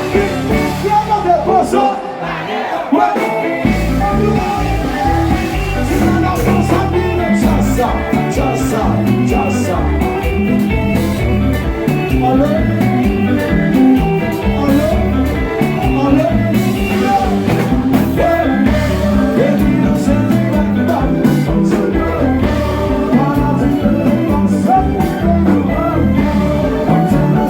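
Loud music with singing and a steady beat; the bass drops out for a moment about two seconds in.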